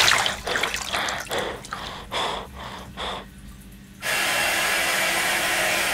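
A man coming up from holding his breath under bathwater: a loud gasp, then about three seconds of quick panting breaths that fade. About four seconds in, a steady rushing noise with a low hum starts.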